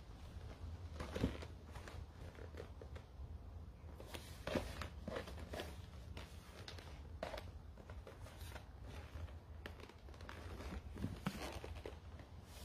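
Faint rustling and scattered small clicks of a man moving and handling things close to a phone's microphone, over a low steady room hum.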